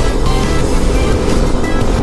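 Background music with short held notes, over a steady low rumble of riding noise.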